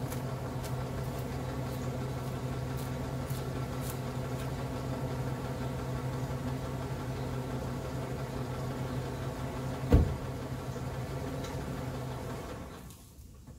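Chevrolet Silverado pickup's engine idling steadily with a slight knock, on an engine that has just shown an oil-pressure warning. A single loud thump comes about ten seconds in, and the engine stops near the end.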